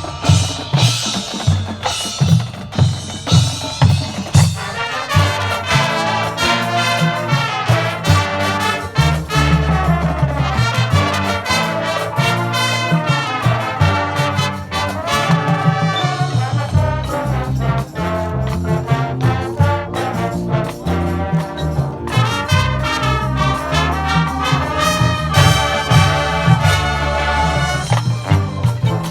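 High school marching band playing a loud passage, brass over drums.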